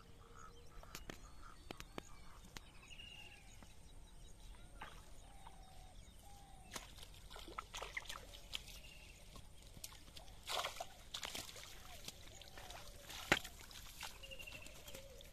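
Faint splashing and sloshing as a cast net is hauled through shallow water and lifted out, heaviest about ten seconds in, with a single sharp click a little later. Birds give short calls in the background.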